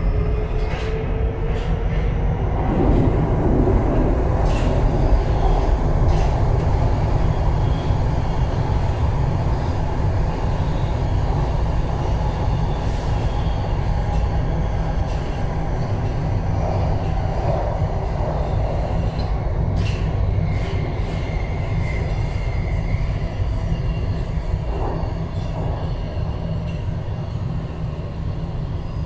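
Budapest M4 metro train running through a tunnel, heard from inside at the front: a steady low rumble of wheels on rails, with a few sharp clicks and a faint high squeal about two-thirds of the way through.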